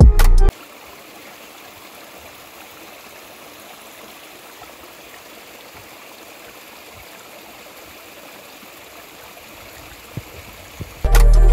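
Shallow stream of water running over a rocky trail, an even, steady rush. Background music cuts off about half a second in and comes back loudly near the end.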